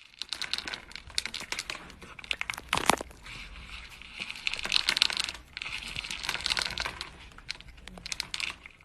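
Dense crinkling and crackling, like something crumpled or rustled, in uneven stretches of quick clicks with a sharper crack about three seconds in and a brief lull a little past halfway.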